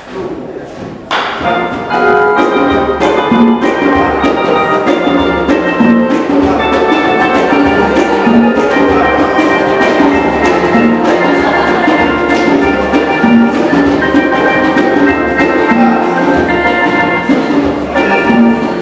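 Large mixed choir singing held chords, over a steady low beat about twice a second.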